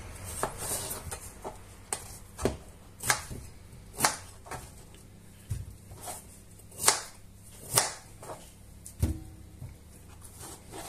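Kitchen knife cutting raw potatoes on a plastic cutting board, with chunks dropped into a glass bowl: about a dozen irregular sharp knocks and taps, separated by quieter handling.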